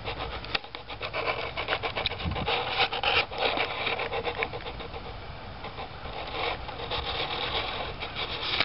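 Close, crackling rustle of dry leaves and twigs, a dense run of small snaps and scrapes, among the branches of a fallen evergreen tree.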